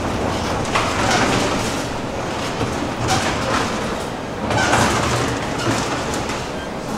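A commuter train running on the rails in the station, a steady rumble with a few brief louder swells.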